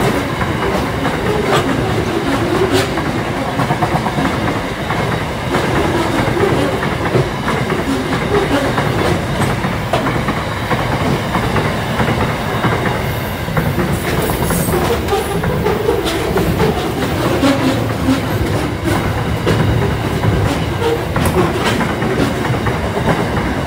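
Container freight train's loaded flat wagons rolling past at close range: a steady rumble of wheels on rail, with repeated clicks and knocks as the wheels cross rail joints.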